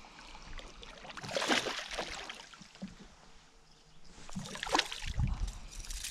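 Water splashing in two bursts, about a second in and again around four to five seconds in: a hooked smallmouth bass thrashing at the surface as it is reeled up to the boat.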